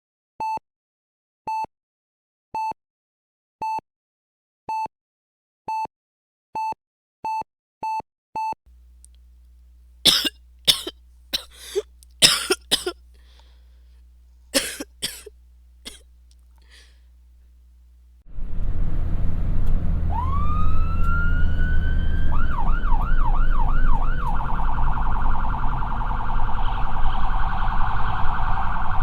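Medical monitor beeping with a single pure tone, about once a second, the beeps coming faster towards the end. Then a run of sharp clicks and knocks over a faint hum. Then an ambulance siren starts over a loud low rumble: first a rising wail, then a fast up-and-down yelp.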